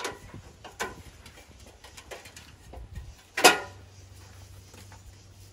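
Light knocks and ticks of a man climbing an aluminum extension ladder, one near the start and another just under a second in, with a brief louder sound about three and a half seconds in.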